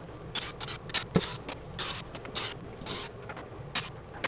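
Irregular handling noises, short scrapes and rustles, as someone reaches up to an RV skylight's plastic trim, with one sharp click about a second in.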